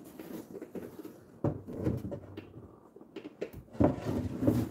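Wooden dresser drawer being handled and worked back into the dresser: a sharp wooden knock about a second and a half in, then scattered knocks and scrapes of wood on wood.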